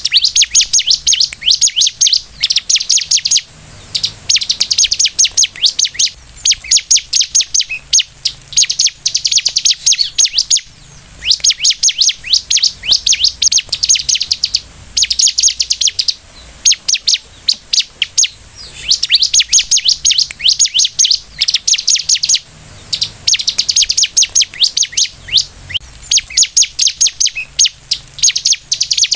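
Bar-winged prinia (ciblek) singing vigorously: loud, rapid, high chattering trills in phrases of one to three seconds with short breaks, repeated over and over.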